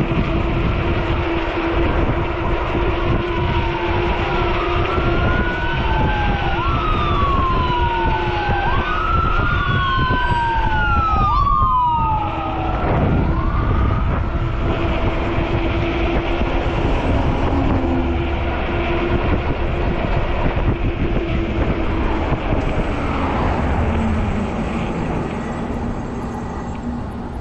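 Ambulance siren wailing, each cycle rising quickly and falling more slowly, about every two seconds; about halfway through its pitch drops steeply and it fades as the ambulance goes by. Heavy wind noise on the microphone throughout.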